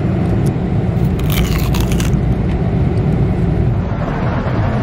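Steady low drone of a Boeing 747-400 cabin in flight, with a short burst of crunching about a second in: a bite into a hard-frozen chocolate-coated Mars bar ice cream.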